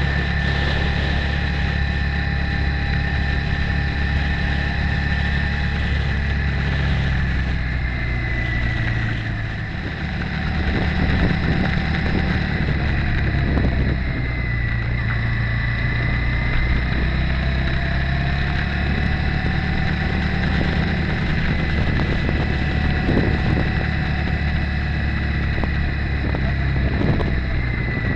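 Motorcycle engine running while riding at low speed, with a steady high whine alongside; the engine eases off about ten seconds in, then pulls again.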